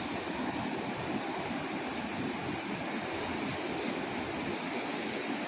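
Sea surf breaking on a beach: a steady, even rushing noise with no distinct single wave crashes.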